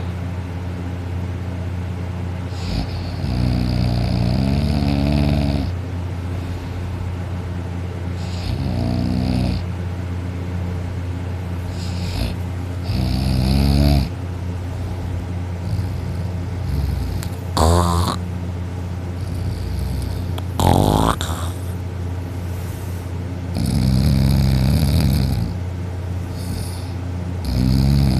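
A person snoring heavily in deep sleep, with about seven snores spaced a few seconds apart. Two shorter snores in the middle rise sharply in pitch. A steady low hum runs underneath.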